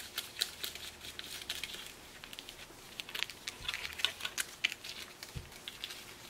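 Small plastic spoon stirring candy sauce in a thin plastic tray, making a quick run of light clicks and scraping taps against the plastic.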